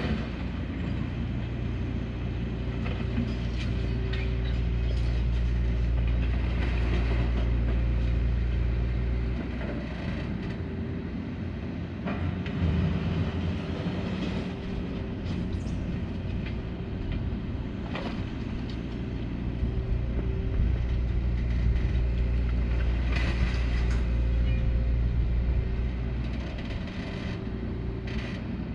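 Hyundai 235 excavator's diesel engine running under load as it works its hydraulics, swelling for several seconds twice and easing back between, with occasional sharp clanks and knocks.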